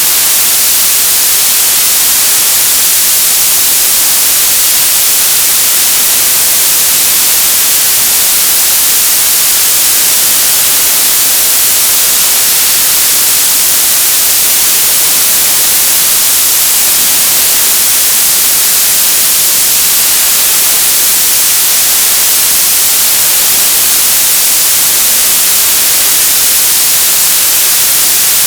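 Television static: a loud, steady, unchanging hiss of white noise, strongest in the high end.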